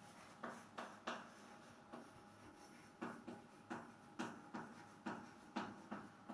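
Chalk writing on a chalkboard: faint, short taps and scrapes as letters are written, three in the first second, then after a pause of about two seconds a steady run of strokes at two to three a second.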